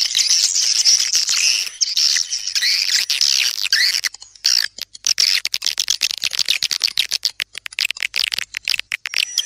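Swiftlet lure call: dense twittering chirps mixed with rapid clicking, the calling sound played to attract swiftlets, with a short lull about four seconds in.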